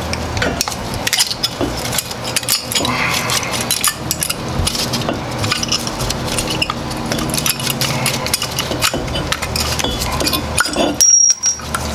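Metallic clicking and clinking as the worn brake pads and their spring retainer clips are pried and rattled out of a Mazda Miata front brake caliper by hand. A short high-pitched tone sounds near the end.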